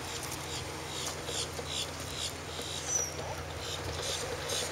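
Footsteps of a person and dogs walking together, a regular run of short steps about three to four a second, over a low steady hum.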